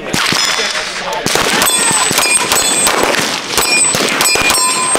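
A handgun firing a string of shots, with steel target plates clanging and ringing as they are hit.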